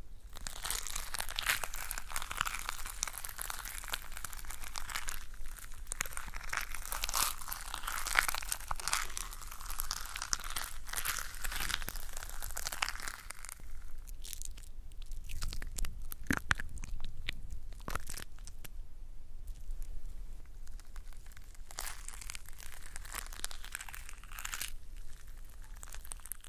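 Close-miked crisp crackling and crinkling from shampoo liquid and foam being worked with a soft brush in a glass bowl. Dense at first, thinning to separate clicks and pops in the middle, then dense again near the end.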